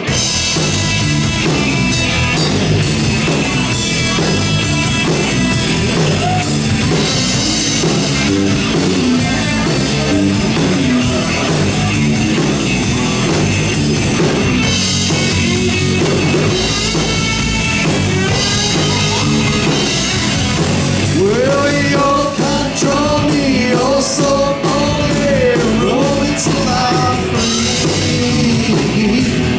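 Live rock band playing: electric guitar, electric bass and drum kit.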